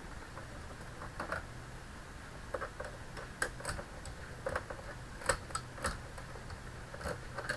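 Small, irregular clicks and ticks of a screwdriver and hands working the back-cover screws of an all-in-one computer, over a faint steady hum.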